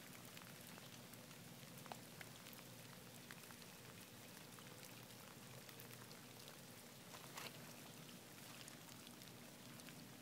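Heavy rain falling, a faint steady hiss broken by scattered sharp drop ticks.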